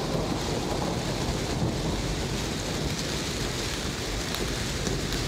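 Steady rain and rumbling thunder sound effect played as the intro of a karaoke backing track, just before the music comes in.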